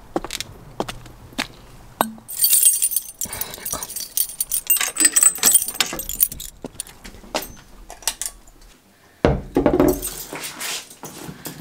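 A bunch of keys jangling and clinking in the hand, in two stretches, the first about two seconds in and the second near the end, with scattered clicks and knocks between them.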